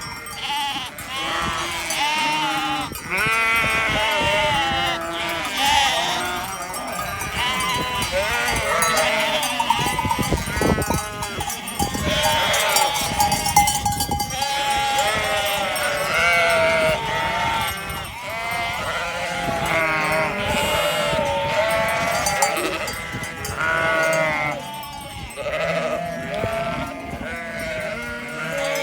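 A large flock of sheep bleating continuously, many overlapping wavering calls at once, with bells clinking among them.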